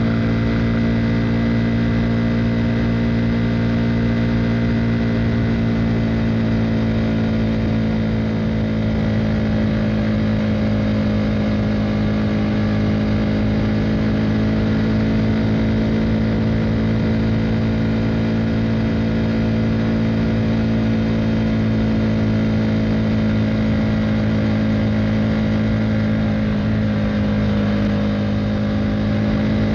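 KTM Duke 390's single-cylinder engine through an Akrapovic Racing Line exhaust, cruising at a steady engine speed. Its pitch dips briefly and comes back up near the end.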